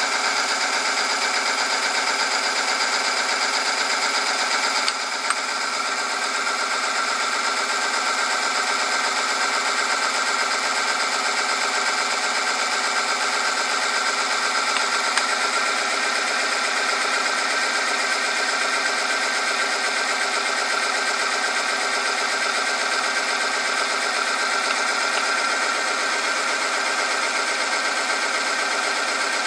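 Electric motor of an oil film friction-testing machine running steadily, its spinning ring rubbing on a metal test sample under lubricating oil: a constant whine and hum of many steady tones. A short click about five seconds in and another around fifteen seconds in, as weights are set on the loading lever to raise the load.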